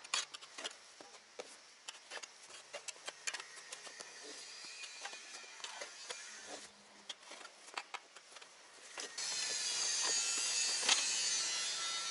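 Light clicks and knocks of hand tools as a wrench is set to a bicycle's front axle nut. About nine seconds in, a neighbour's saw starts up and runs steadily.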